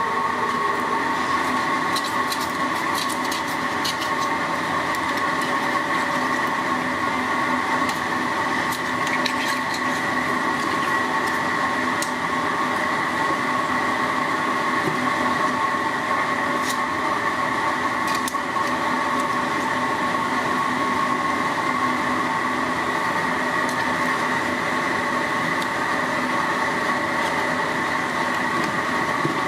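A steady machine drone with several held tones, unchanging throughout. A few faint clicks come through it in the first half.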